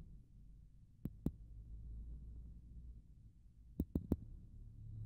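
Faint handling noise from a handheld camera: a low rumble with soft knocks, two about a second in and three in quick succession near the end.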